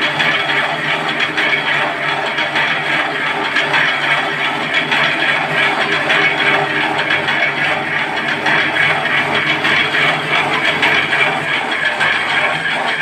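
Noodle-making machine running steadily, its rollers and cutter turning out noodle strands, a dense mechanical whir with a low hum under it.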